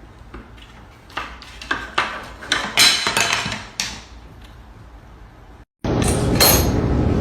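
A string of sharp clinks and clattering knocks of hard objects, like dishes or cutlery, over the first four seconds. Then an abrupt cut to a louder, steady noise with a low hum.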